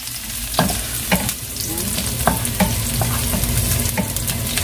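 Garlic sizzling in a little cooking oil in a frying pan, being cooked to a light golden brown. A steady hiss runs throughout, with irregular clicks of a utensil stirring against the pan every half second or so.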